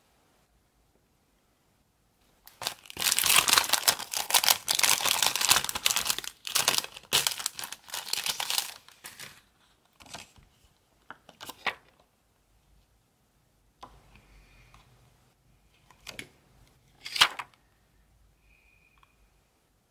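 Crinkling and rustling of a plastic sheet of star-shaped nail stickers being handled, a dense stretch of several seconds followed by a few shorter rustles and one sharp crackle near the end.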